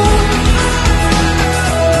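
Background music: a pop-rock song with a steady beat and held notes.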